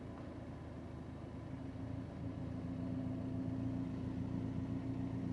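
BMW 330i's 2.0-litre turbocharged four-cylinder idling steadily just after being started, heard up close at the tailpipe with the exhaust flap open so both exhausts are flowing. The idle gets a little louder about halfway through.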